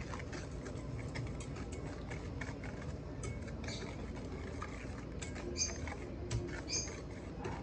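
Wire whisk beating egg and sugar in a stainless steel bowl: a rapid, irregular patter of clicks as the wires tap and scrape against the metal, with a few sharper taps near the end.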